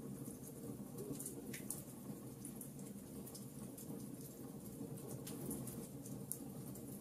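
Wood fire burning in a fireplace, crackling with scattered sharp pops and snaps over a low steady background.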